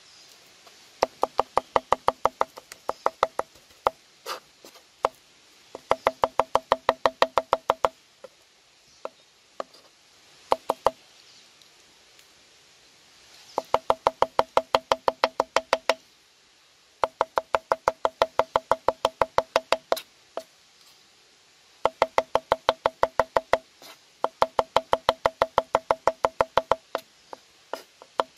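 Rapid wooden knocking with a hollow, pitched ring, about six knocks a second in bursts of two to three seconds, repeated about eight times with a few single knocks between.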